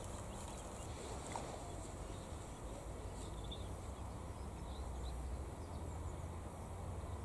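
Outdoor background ambience: a steady low rumble, with a few faint high chirps about three seconds in.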